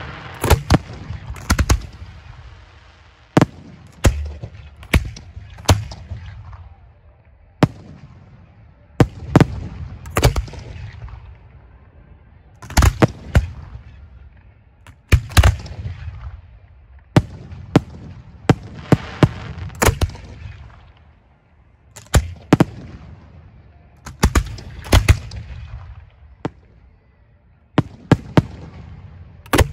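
Professional fireworks display shells firing from racks of mortar tubes: sharp reports, single or in quick pairs, every second or two, each trailing off in a low rumbling echo.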